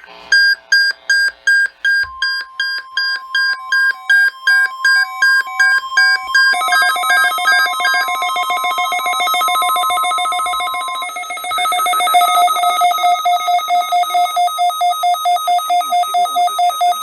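NOAA Weather Radio 1050 Hz warning alarm tone, one steady tone held for about nine seconds as a weekly test of the warning device, over the rapid electronic beeping of a weather radio receiver's alert alarm. The beeping drops in pitch about six seconds in and pulses faster from about twelve seconds in.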